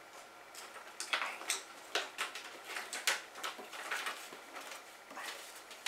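Clear plastic disc case and its paper cover insert being handled: a string of soft rustles and small clicks as the cover sleeve is swapped in the case.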